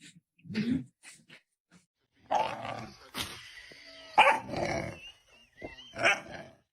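A dog barking and growling in several loud bursts.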